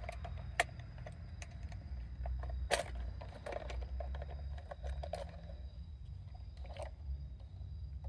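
Scattered clicks and light knocks of plastic parts as hands work on a car's fuel pump module assembly, fitting its hose, over a steady low rumble. The sharpest clicks come about half a second in and just under three seconds in.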